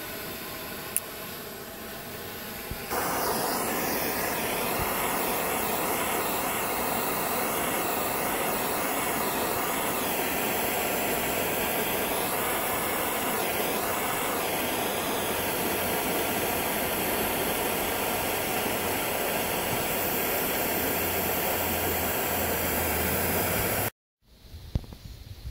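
Handheld propane torch burning with a steady hiss, heating the shrink sleeve over a submersible well pump's cable splice. It starts louder about three seconds in and cuts off suddenly near the end.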